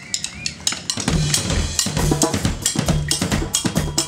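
Drums played with sticks: a few scattered hits, then from about a second in a driving, steady beat of sharp cracks over low thuds.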